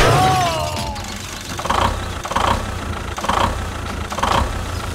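A crash at the start, with a tone that slides downward over about a second, as the toy tractor smashes onto the railway track. Then a low steady engine rumble follows, with a soft pulse about once a second.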